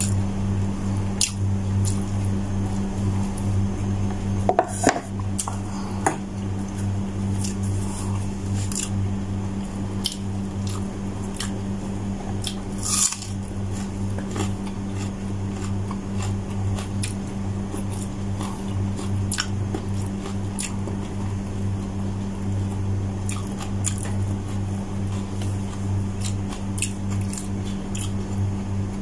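Close-up eating sounds: chewing and wet mouth smacks as rice and stewed chicken hearts are eaten by hand, with scattered small clicks of fingers scooping food off a plate. A steady low hum runs underneath.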